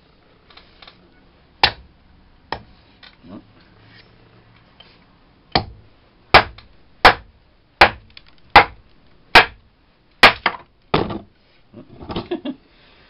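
Hand-forged Husqvarna carpenter's axe chopping into a birch stick stood on a chopping block. Two spaced blows come first, then a quicker run of about nine chops, a little faster than one a second, and a brief splintering crackle near the end.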